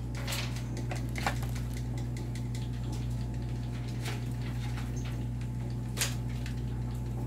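Plastic model kit parts and their cellophane bags being handled in a cardboard box: scattered light clicks and crinkles, the sharpest about six seconds in, over a steady low hum.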